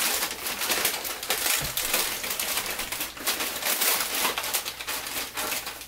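Christmas wrapping paper and tissue paper rustling and crinkling as clothes are pulled out of opened gifts, a dense run of crackles.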